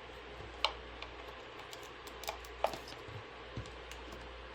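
Several light clicks and taps of a charger cable and tablet being handled, the loudest about half a second in and two more close together a little past two seconds, over a faint steady low hum.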